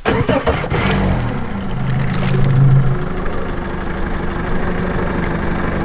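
Yamaha V MAX SHO 150 four-stroke outboard starting on the key: it catches at once, runs up briefly about two seconds in, then settles to a steady, pretty quiet idle.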